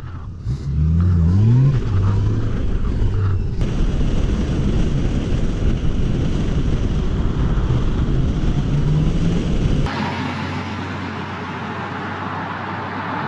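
Riding noise on a 2018 Honda Gold Wing: the wind rushing past and the bike's flat-six engine, whose pitch rises about a second in as it accelerates and then settles into a steady cruise. The tone of the noise changes abruptly twice.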